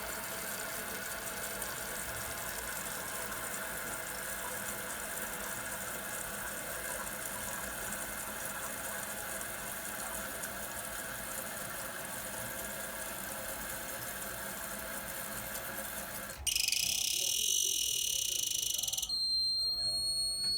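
Toilet tank fill valve refilling the tank with a steady hiss and a warbling squeal, the noisy fill the owner sets out to cure. About 16 seconds in it turns suddenly to a louder, sharper hiss, and near the end to a high steady whistle.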